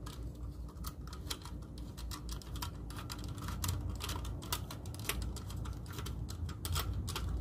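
Small precision screwdriver backing out a screw from a circuit board mounted on a metal chassis: a run of light, irregular metallic clicks, several a second, over a low steady rumble.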